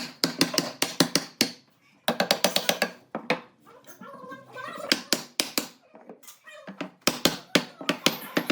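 Quick runs of sharp taps and knocks, several a second, with short pauses between the runs.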